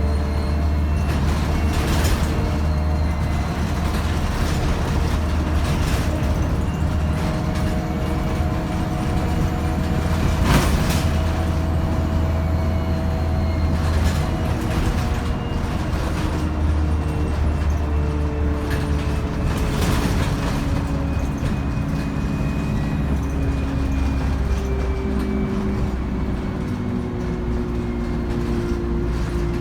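ADL Enviro 200 bus running under way: a steady diesel drone with the whine of its three-speed Voith automatic gearbox and turbo, the whine's pitch shifting and falling in the last few seconds. Occasional knocks and rattles.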